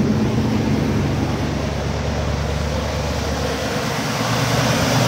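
Buick 455 V8 in a 1976 Electra 225 idling steadily, shortly after being started.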